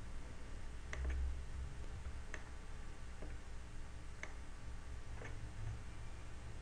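Faint sharp clicks, about one a second, over a low steady hum.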